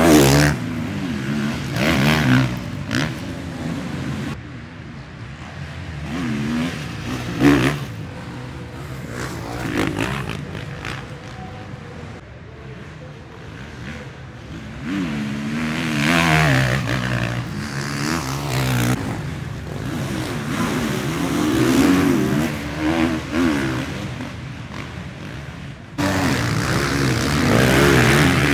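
A 450cc four-stroke KTM motocross bike's engine revving hard and backing off as it is ridden through sand corners and over jumps, with several loud passes that rise and fall in pitch.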